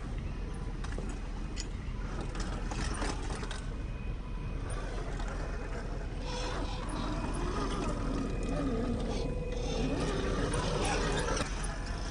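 Axial SCX10 II RC crawler's brushed 550 motor and gear drivetrain whining as it crawls over rock, with clicks and scrapes of tyres and chassis on stone. The steady whine starts about six seconds in and stops suddenly near the end.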